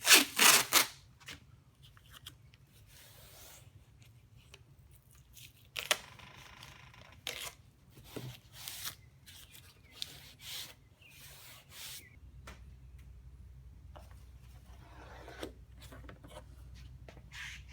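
Workshop handling noises: short rubbing, scraping and clicking sounds of tubing and tools being handled while a bend is laid out, with a louder scrape at the very start. A faint low hum comes in about two-thirds of the way through.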